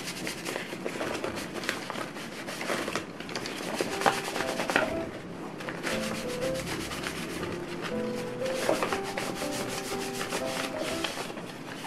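A cloth rubbing over the leaves of an artificial fiddle-leaf fig as they are wiped one by one, in quick scratchy strokes with the leaves rustling, over soft background music.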